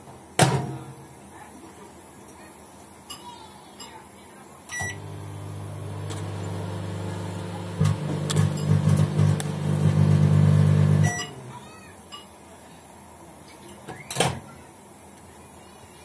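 Panasonic NN-GT353M microwave oven with a newly fitted 2M319J magnetron: the door clicks shut, a beep sounds as it starts, and the oven hums for about six seconds, turning louder and rougher partway through. A second beep sounds as it is stopped, then the door clicks open. The replacement magnetron does not suit this oven and sets it smoking.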